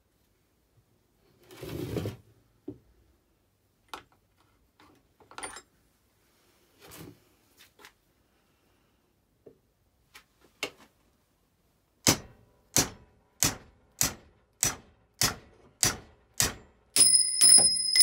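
Claw hammer striking a steel pin punch set on the garden scissors' pivot in a vise: about a dozen sharp metallic hits, roughly two a second, starting about twelve seconds in, the last few ringing. Before that, a few light clicks and a thud from the plastic punch case being opened and handled.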